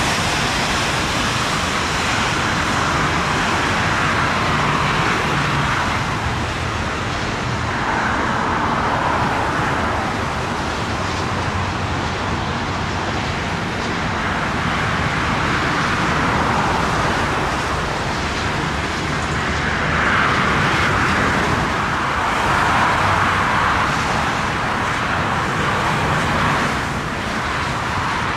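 Steady motorway traffic, swelling every few seconds as vehicles pass.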